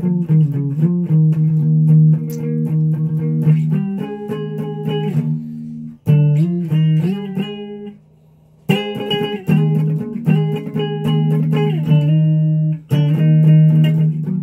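Electric guitar played with a clean tone: picked single notes and chords ringing over one another in short phrases, with a brief stop about eight seconds in.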